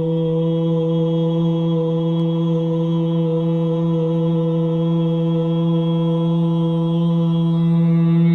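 A man chanting a long, sustained Om (pranava nada), the syllable held on one steady pitch throughout.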